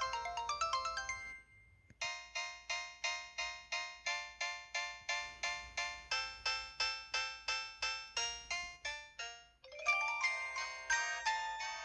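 Samsung SPH-B2350 mobile phone's built-in polyphonic ringtones playing bell-like, mallet-toned melodies. One tune ends about a second in; after a short pause a new one starts with evenly paced notes, about three a second. Near the end the notes stop briefly and a busier passage begins.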